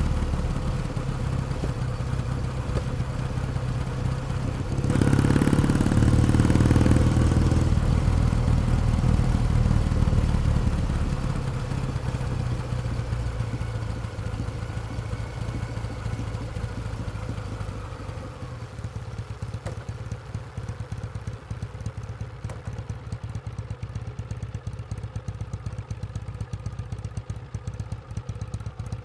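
Kawasaki W1 Special's vertical-twin engine running under way. It opens up louder for a couple of seconds about five seconds in, then eases off gradually and settles to a quieter, even beat over the last ten seconds.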